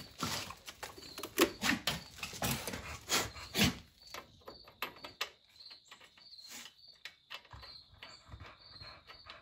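Irregular knocks, clicks and scrapes of hands working on a lawn tractor's engine over the first four seconds. After that it is quieter, with a faint high chirp repeating about twice a second.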